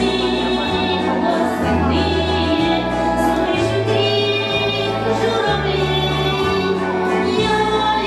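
A woman singing a slow song at a microphone over an instrumental accompaniment, its bass stepping to a new note about once a second.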